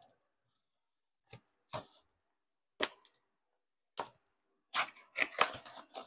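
Cardboard mailing box being opened by hand: a few separate sharp snaps of card and tape, then a denser run of tearing and crackling near the end.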